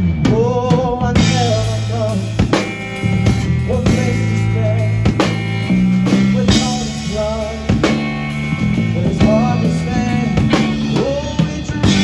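Rock-style music with a drum kit, steady bass and a lead line that bends up and down in pitch.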